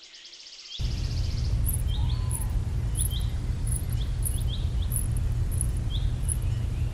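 Bird-and-insect ambience: scattered short bird chirps and a regular high insect chirp about twice a second over a steady low rumble. A fast insect trill dies away in the first second or so.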